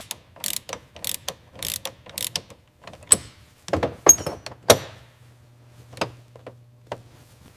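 Ratchet wrench clicking in uneven runs as a fitting on a pedal assembly is tightened, with sharper metal clinks in the middle. A steady low hum comes in about two-thirds of the way through.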